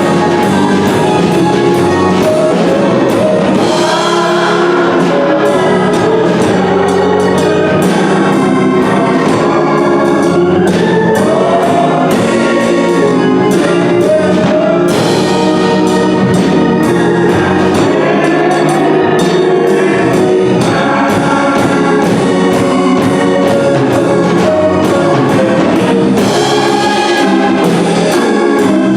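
Gospel music with singing and a steady beat, played loud throughout.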